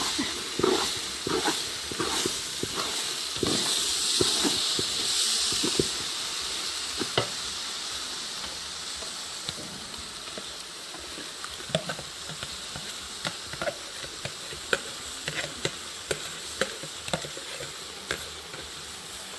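Rice frying in a pot, sizzling, while a spoon scrapes and knocks against the pot as it is stirred. The sizzle swells louder about three seconds in and eases after about six seconds, with scattered knocks continuing.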